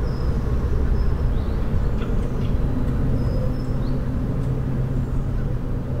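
A steady low outdoor rumble, with faint short, high chirps from small birds scattered through it.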